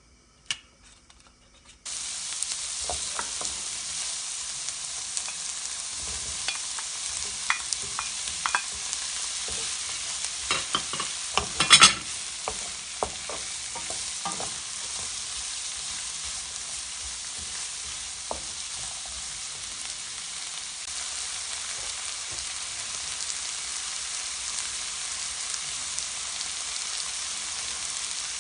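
Food sizzling steadily in a frying pan, starting abruptly about two seconds in, with the clicks and scrapes of a spatula stirring and tossing it. The scraping is busiest around the middle and loudest just before halfway, then the sizzle carries on alone.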